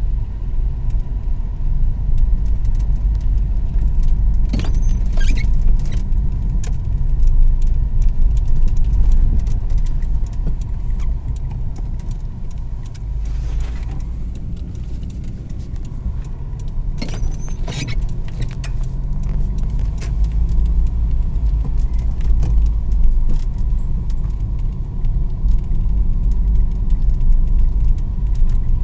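Steady low rumble of a car driving over a snow-covered road, heard from inside the cabin. Brief squeaky, jingling rattles come about five seconds in and again about seventeen seconds in.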